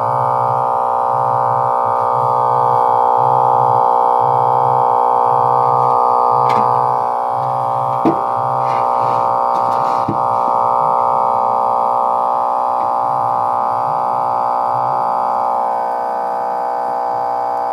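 Horn loudspeakers playing loud synthesizer-keyboard music, the sound crowded into a narrow middle band with a sustained chord over a low pulse about once a second. Three short knocks sound around the middle.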